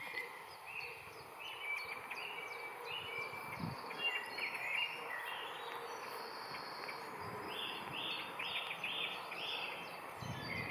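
Wild birds singing outdoors, with short chirps and whistled notes throughout and a run of about five evenly spaced notes about three quarters of the way in, over a steady background hiss of ambient noise.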